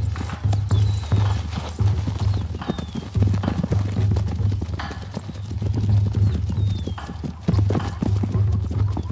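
Zebra stallions fighting: hooves stamping and scuffling on the ground, with a few short, high squealing calls, over background music with a low pulsing beat.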